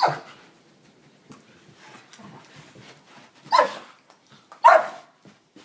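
Two dogs, an Australian Kelpie and a Doberman, play-fighting: three loud short barks, one at the start and two close together near the end, with quieter scuffling in between.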